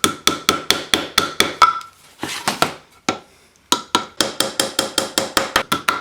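Rapid light hammer taps driving small glued wooden strips into the ends of a wooden box, several taps a second with a faint ringing. The tapping stops after about a second and a half, there is a brief rustling noise, and the tapping starts again near four seconds in.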